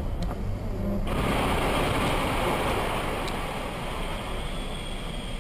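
A sudden loud rushing, scraping noise begins about a second in over a vehicle's low rumble, then holds and slowly fades as a dump truck skids sideways across a wet tunnel road.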